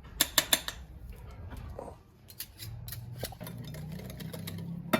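Irregular clicks and light scraping of a utensil in a mixing bowl as cake batter is stirred, with a low steady hum coming in about halfway through.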